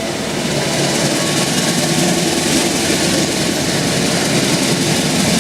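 Class CC206 diesel locomotive running as it hauls a train through a station. The sound grows louder over the first second, then holds steady and loud.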